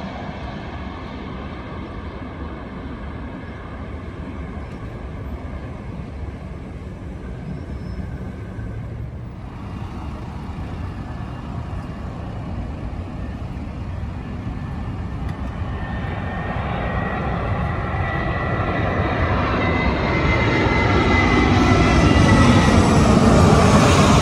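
Jet airliner engines on landing approach: one aircraft's noise dies away in the first several seconds, then another approaches and grows steadily louder toward the end, its high engine whine falling slowly in pitch as it passes.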